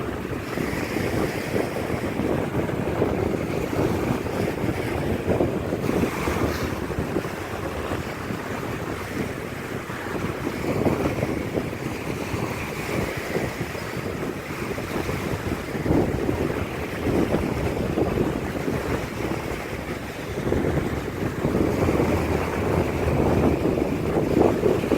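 Strong wind buffeting the microphone in uneven gusts, growing louder in the last few seconds.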